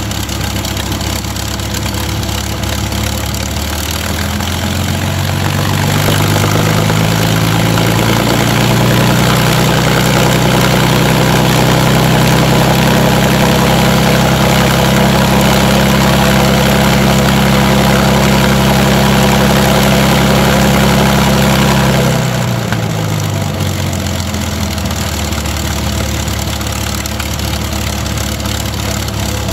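Rolls-Royce Merlin V12 aero engine driving its propeller. It idles, is run up over a few seconds about four seconds in, holds a steady higher-rpm run for around fourteen seconds, then is throttled back down to idle.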